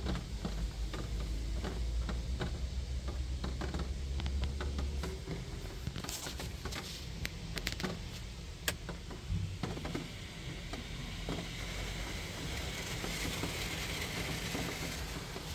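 Automatic car wash heard from inside the car's cabin: water drops and spray pattering and ticking on the windshield over a low machinery hum, then from about ten seconds in a steady hiss of spray that grows louder.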